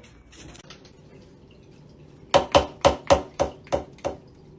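A quick run of about eight sharp knocks or taps, roughly four a second, starting about halfway through and stopping shortly before the end.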